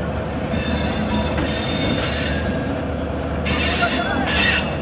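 Rajdhani Express passenger coaches rolling past as the train pulls out, with a steady rumble of wheels on rail. About three and a half seconds in the wheels squeal on the rails with high, wavering pitches for about a second.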